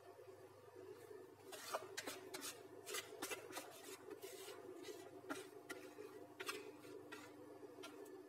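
Silicone spatula scraping banana cake batter out of a plastic mixing bowl into a cake tin: a faint run of soft scrapes and small clicks over a low steady hum.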